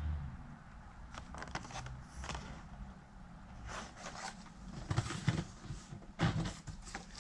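Carded action figures being handled: scattered clicks, scrapes and rustles of cardboard backing cards and plastic blister packs being picked up, shuffled and set down.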